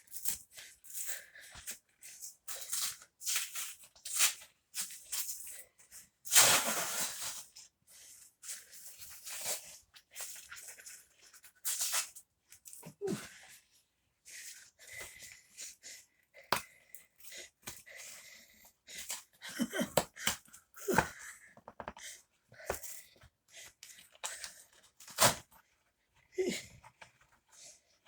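A mail parcel being torn open and its packaging rustled and crinkled by hand: irregular rips and crackles, with a few louder tears, the loudest about six seconds in.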